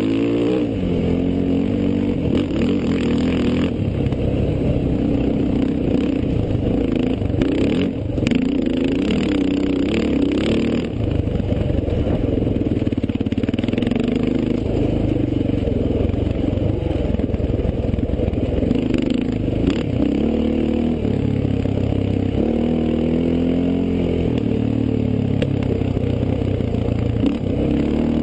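Onboard sound of a desert race vehicle at speed: the engine runs hard, its pitch rising and falling with the throttle, with bursts of rattling about eight to eleven seconds in and again near twenty seconds.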